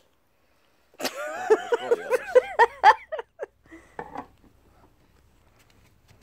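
A high-pitched voice in a quick run of rising-and-falling notes lasting about two and a half seconds, followed by a few light clicks and knocks.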